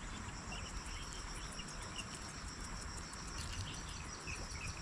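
Outdoor ambience: a steady high drone of insects with scattered short bird chirps.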